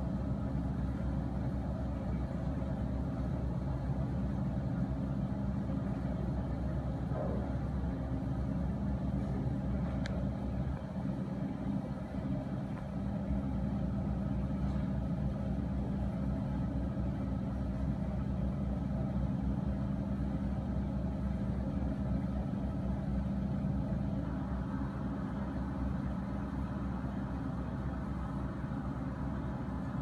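Excavator's diesel engine running at a steady speed: a constant low hum that neither revs up nor dies down.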